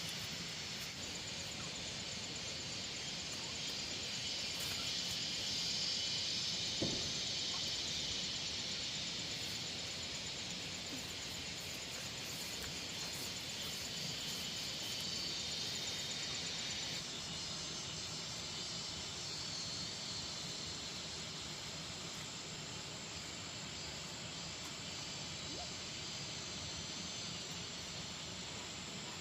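Steady high-pitched insect chorus, crickets or cicadas chirring without pause, with a single knock about seven seconds in.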